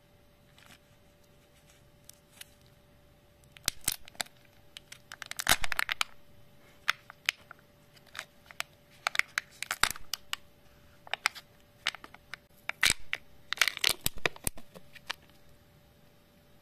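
A Kinder Joy plastic egg being pulled apart and its thin peel-off seal torn off the cup: bursts of plastic crackling, tearing and small clicks. The loudest bursts come about five and a half seconds in and again around thirteen to fourteen seconds.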